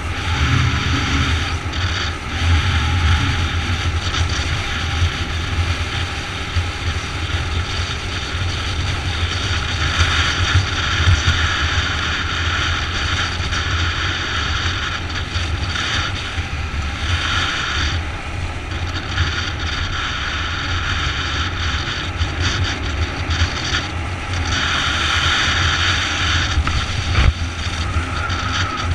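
Motorbike on the move: wind rushing over the microphone, swelling and easing every few seconds, over the steady low drone of the engine at cruising speed.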